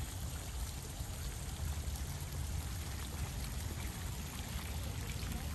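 Steady pouring and trickling of water as a stone garden channel runs into a pond.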